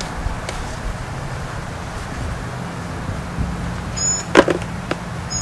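A leather knife sheath being slid out of a cardboard box: quiet handling rustle, with a louder short scrape about four seconds in as it comes free. Under it runs a steady low rumble.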